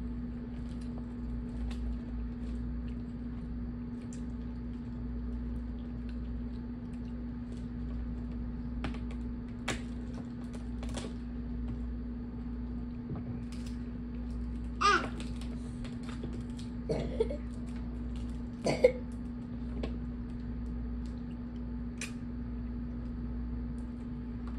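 Steamed blue crab shells being cracked and picked apart by hand: scattered sharp clicks and cracks over a steady hum. Two or three short vocal sounds come in the middle.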